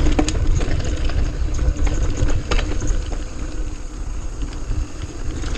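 Mountain bike rolling over a rough dirt trail: heavy wind rumble on the microphone with tyre and chain noise, and a few sharp knocks and rattles from the bike over bumps in the first three seconds.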